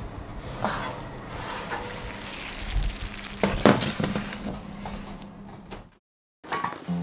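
A hot oven tray of gnocchi alla Sorrentina sizzling as it is pulled out of the oven, with a few metal clanks from the tray on the rack and a louder clank about three and a half seconds in as it is set down on the stovetop. The sound cuts off shortly before the end, and music begins.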